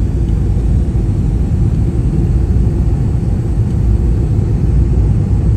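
Jet airliner cabin noise on final approach: a steady, loud, low rumble of engines and airflow heard from inside the cabin.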